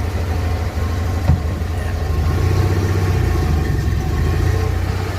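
Steyr-Puch Haflinger's air-cooled flat-twin engine running as the little 4x4 drives, a steady low drone with a single sharp knock about a second in.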